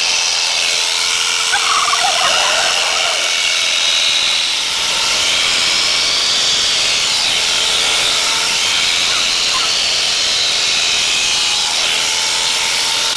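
Electric sheep-shearing handpiece running steadily, its cutter buzzing with a constant hum and hiss as it shears through an Icelandic sheep's fleece.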